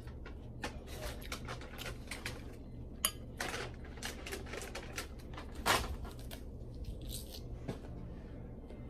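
Biting into and chewing a crisp raw jicama slice topped with shrimp paste: a run of short crunches, with a sharp click about three seconds in and the loudest crunch a little under six seconds in, over a low steady hum.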